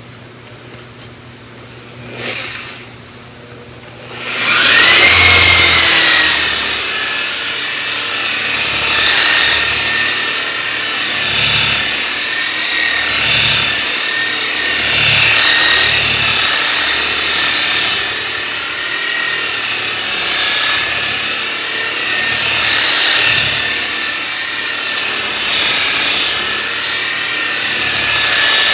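Electric rotary polisher spinning up about four seconds in, its motor whine rising and then settling into a steady high whine. The pitch sags and recovers in slow waves as the buffing pad is pressed and worked across the paint, with a rushing rub of pad on paint under it. This is the buffing stage that brings back the gloss on single-stage paint wet-sanded to remove runs.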